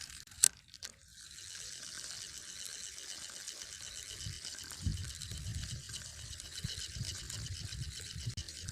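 Fishing reel being cranked to retrieve line, a steady fast ticking whir. A single sharp click comes about half a second in.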